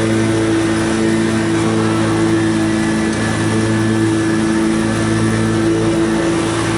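Exmark Turf Tracer 52-inch walk-behind commercial mower running steadily at full throttle while cutting grass.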